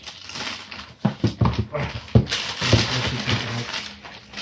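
Paper wrapping crinkling and rustling as a sneaker is pulled out of its box, with quick scuffs and taps of handling.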